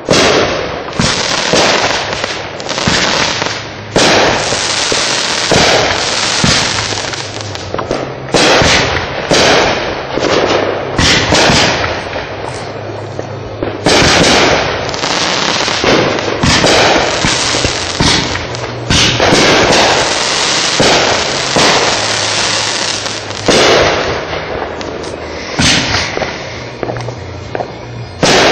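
Consumer firework cakes going off one after another: a dense, continuous barrage of bangs and crackling, with short lulls every few seconds.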